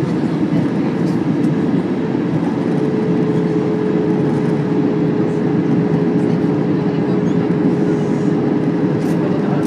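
Airbus A321-100 cabin noise at a window seat during the descent to land: the steady rush of the engines and the airflow over the fuselage. A steady hum tone runs underneath and comes through more clearly after a couple of seconds.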